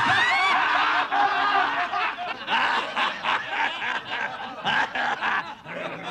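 Several people laughing, loud at first, then breaking into shorter bursts that grow quieter.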